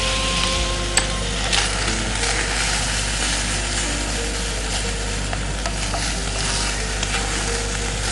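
Fried rice sizzling in a wok on a gas flame as a wooden spatula stirs and tosses it, with a few scrapes and knocks of the spatula against the pan.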